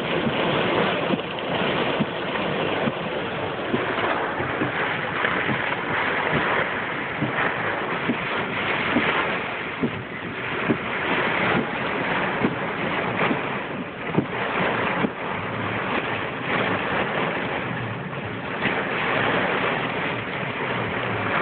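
Hail and heavy rain pelting the car's roof and windshield: a dense, steady rush with many small sharp hits running through it.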